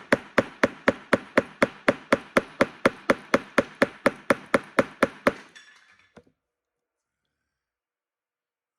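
Hammer tapping a pin punch to drive a stubborn pin out of a Glock 26 pistol frame: a fast, even run of sharp metallic taps, about four a second, that stops about five seconds in.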